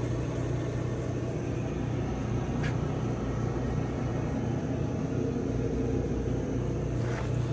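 GE clothes dryer running steadily with a low hum, started by nothing more than closing the door: the start switch is stuck in the on position.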